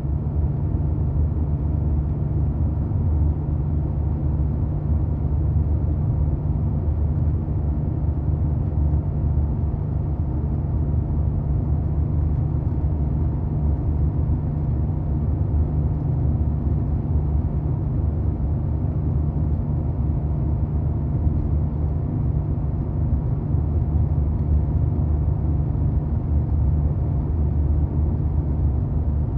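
1990 Porsche 911's air-cooled flat-six running at a steady, unchanging engine speed: a continuous low rumble with no revving.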